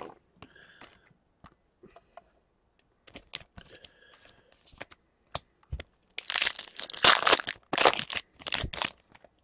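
Foil wrapper of an Upper Deck Ice hockey card pack being torn open and crinkled. It is loudest for about three seconds starting about six seconds in, after a few faint clicks and rustles of cards being handled.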